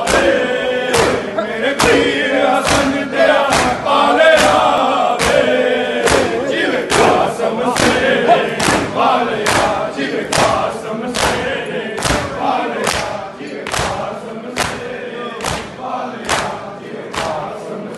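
Men's group chanting a noha in unison, a Shia Muharram lament, to a steady beat of matam: open hands striking chests in time, about three beats every two seconds.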